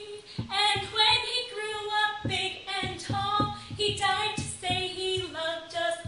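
A girl singing a children's action song unaccompanied, in sustained sung phrases with no instruments.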